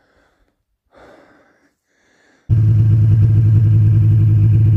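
Two faint breaths in near quiet, then, about halfway through, an abrupt cut to a snowmobile engine running steadily and loudly under way.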